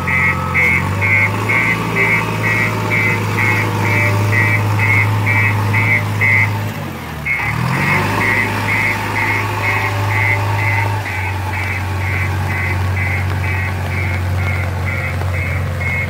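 JCB 3DX backhoe loader's diesel engine running as the machine drives, with a steady electronic beeping at about two to three beeps a second. About seven seconds in, the engine note briefly dips and the beeping pauses, then both carry on.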